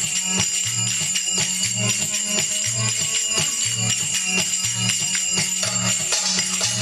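Belly dance music with a repeating low bass pattern and jingling, tambourine-like percussion.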